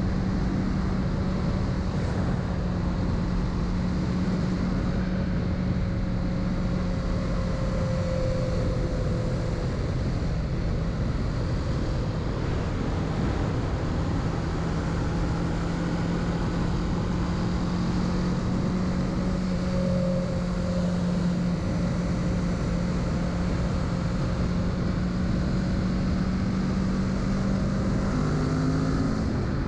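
Kawasaki Z650's parallel-twin engine running at a steady cruise under a heavy rush of wind and road noise; the engine note shifts in pitch briefly near the end.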